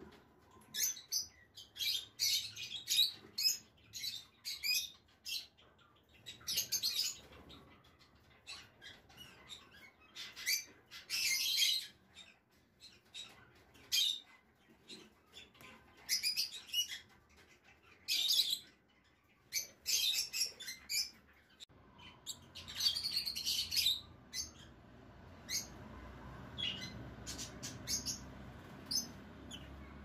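Lovebirds chirping in many short, shrill, irregular bursts.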